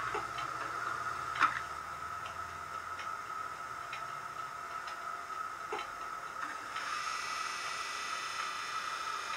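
A Hornby APT model train's DCC sound decoder playing the standing sounds of the APT electric train through its built-in loudspeaker. A steady electrical whine runs throughout with scattered light ticks, and a low hum dies away in the first few seconds. About seven seconds in, a higher multi-tone whine starts and holds.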